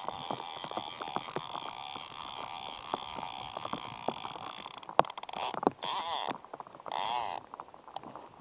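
A fly reel's click-and-pawl ratchet buzzing as the spool turns, steadily for about five seconds, then in several short bursts, with light rain on the river underneath.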